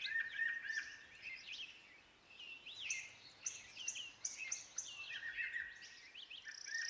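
Layered ambience of many songbirds chirping and singing at once, with quick high chirps and trills overlapping: a bright, cheerful summer-forest bird bed.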